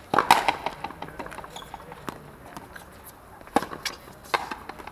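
Frontenis rally: sharp smacks of the rubber ball off the players' strung rackets, the fronton wall and the floor. A quick cluster of hits comes at the start, then single smacks about two seconds in and twice more near the end.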